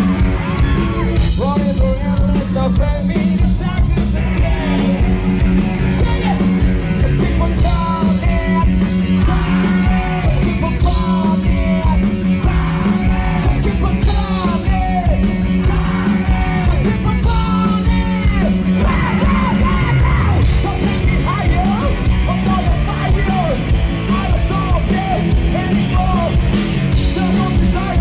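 Live rock band playing loudly: an electric guitar solo with many bent, wavering notes over steady drums and bass.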